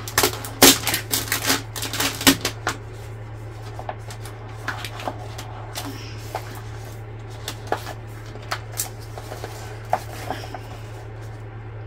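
Thin iridescent plastic film crinkling as it is folded and pressed by hand: a dense run of crackles for the first couple of seconds, then scattered single crackles. A steady low hum runs underneath.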